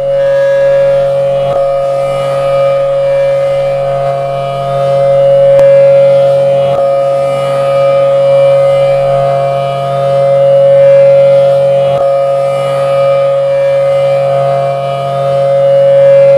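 Federal Signal Thunderbolt outdoor warning siren sounding a loud, steady tone, its loudness swelling and fading about every five to six seconds as the rotating head sweeps past.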